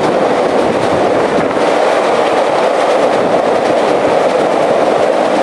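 A Chicago 'L' elevated train running past with a loud, steady rumble of wheels on the track.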